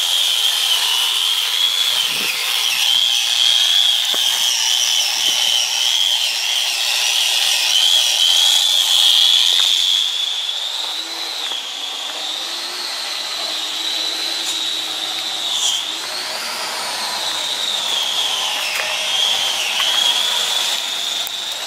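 A hand power tool polishing wheels, its motor whining at a steady high pitch, with brief dips in pitch now and then as it is loaded.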